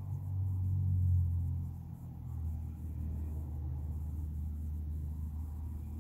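A low, steady rumble: louder for the first two seconds, then settling a little lower in pitch and holding steady.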